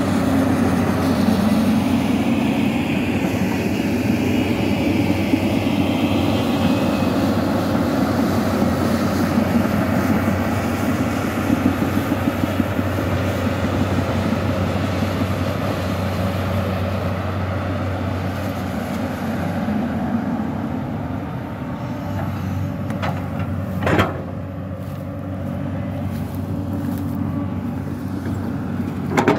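Hyundai 215L crawler excavator's diesel engine running steadily as the machine works in heavy mud, a little quieter in the second half. Two sharp knocks cut through, one about 24 seconds in and one just before the end.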